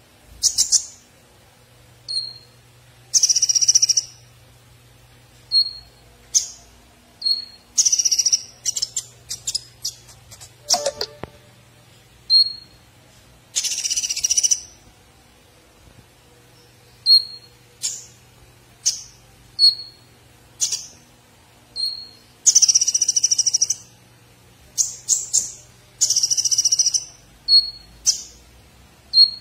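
Caged male Van Hasselt's sunbird (kolibri ninja, 'konin') singing. Short sharp high chirps alternate with bursts of rapid twittering song of about a second each, repeated many times. A faint steady low hum lies underneath.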